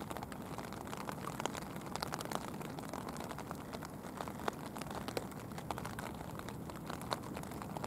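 Rain falling: a steady hiss with irregular sharp ticks of single drops.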